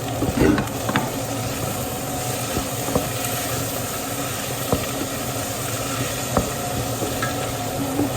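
Pork sizzling as it fries in a pan, with a few sharp taps and scrapes of a utensil stirring it.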